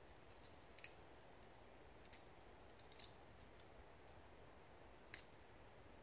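Near-silent forest ambience: a faint steady hiss with four short, sharp high clicks at irregular moments, about a second in, near two seconds, at three seconds and a little after five seconds.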